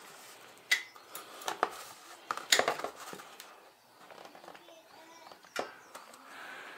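Irregular sharp metal clinks and knocks of a 17 mm wrench being fitted to and pulled on a tight oil drain nut under a Kawasaki Vulcan 1500's engine, about half a dozen in all, the loudest about two and a half seconds in.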